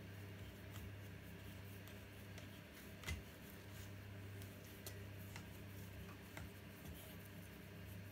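Faint rustling and small clicks of wool yarn being handled and worked around the wooden pegs of a peg loom, with one sharper knock about three seconds in. A steady low hum lies underneath.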